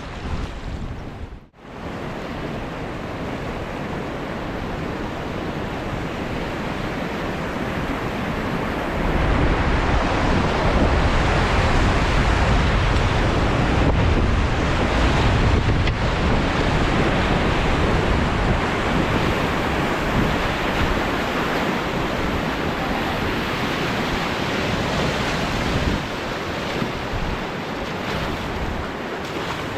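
Steady rush of river water, with wind rumbling on the microphone. The noise is briefly cut about a second and a half in, then grows louder from about nine seconds in and eases off after about twenty seconds.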